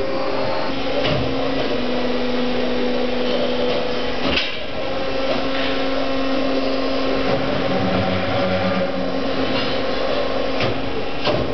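Tube-bending machine running, with a steady motor hum while it feeds and bends a metal tube, and a sharp clunk about four seconds in and another near the end.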